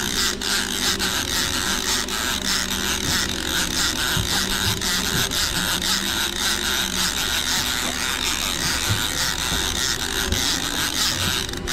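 Conventional lever-drag fishing reel working under the load of a hooked albacore tuna, a continuous whirring with fast, even clicking, over a steady rushing background.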